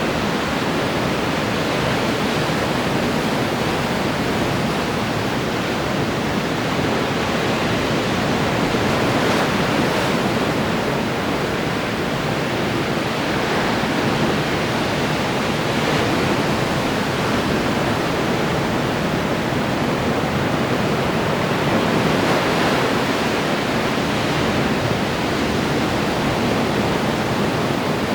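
Ocean surf breaking on the shore: a continuous wash of waves, swelling gently every several seconds as sets come in.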